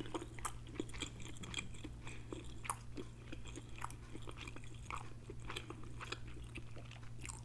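A person chewing a mouthful of jerk chicken wing close to the microphone, mouth closed: soft, irregular clicks and smacks of chewing, several a second.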